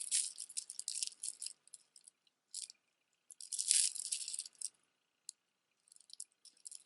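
Costume jewelry rattling and clinking as it is handled, in two bursts of quick metallic jingles, the second about halfway through.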